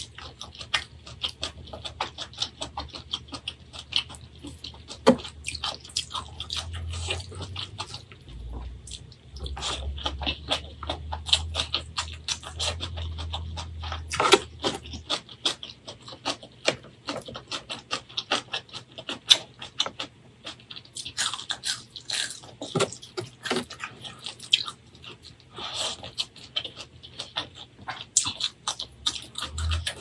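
Close-miked chewing and mouth sounds of someone eating rice and greens by hand: a dense, irregular run of wet clicks and smacks.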